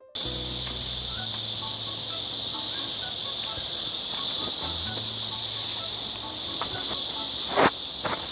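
Dense, steady chorus of insects: a loud, high-pitched buzzing hiss that starts suddenly at the very beginning and holds level throughout.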